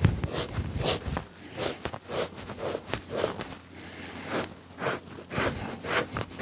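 Two-handled fleshing blade scraping an elk hide over a fleshing beam in repeated strokes, about two a second, as the hide is fleshed before tanning.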